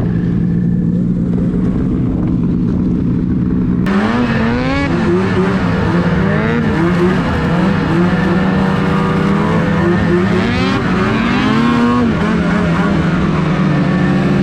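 Ski-Doo Rev snowmobile's 800 H.O. two-stroke engine idling steadily, then about four seconds in revving up and down again and again. The riders suspect it is running a little rich.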